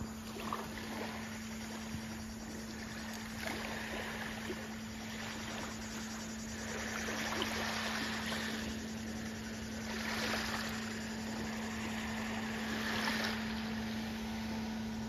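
Small waves lapping and washing onto a pebbly shoreline, swelling and fading every few seconds, over a steady low hum.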